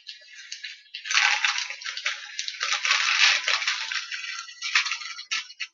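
Crinkling and crackling of small doll-sized breakfast props handled at a tabletop, in a dense run lasting about four seconds, with a few short crinkles near the end.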